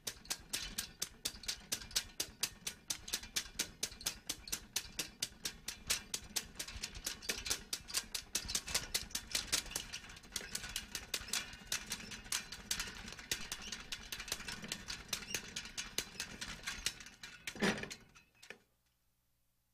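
A fast, even ticking, about four sharp ticks a second, ending in one louder hit near the end.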